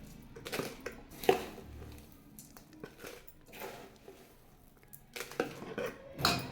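Kitchen utensils knocking and scraping against a pan as dry coriander panjiri is scooped out into a container: a string of irregular clinks and knocks with scraping between them, the loudest a little over a second in and a cluster near the end.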